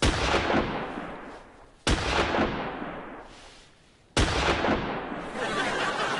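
Three loud gunshot sound effects, about two seconds apart, each with a long echoing tail that dies away.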